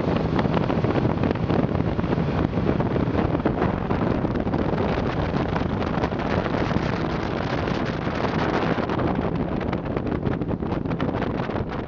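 Speedboat running at full speed over the river: a loud, steady engine drone mixed with wind buffeting the microphone.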